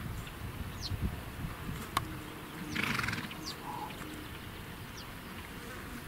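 Flies and other insects buzzing, with one buzz swelling close by about three seconds in. Short high falling chirps repeat roughly once a second over a low rustle.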